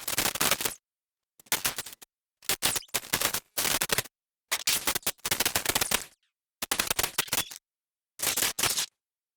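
Electric sparks crackling in a string of short bursts, about seven in all, each a dense run of rapid snapping clicks lasting under a second to about a second and a half, with silence between.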